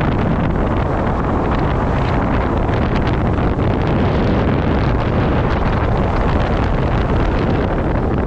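Airflow from a tandem paraglider in flight rushing over a camera microphone: loud, steady wind noise with a heavy low rumble and constant small gusts.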